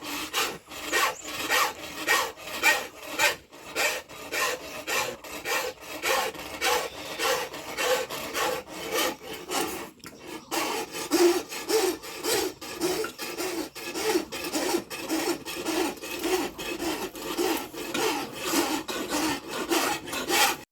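Hand file rasping in steady back-and-forth strokes, about two a second, with a brief pause about ten seconds in.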